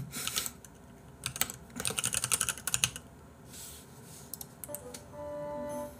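Typing on a computer keyboard: quick runs of keystrokes through the first three seconds. Near the end, soft background music comes in with a few held notes.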